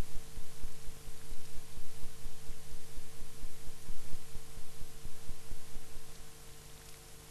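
Steady electrical hum over a rapidly pulsing low rumble, fading out about six seconds in to a faint hiss.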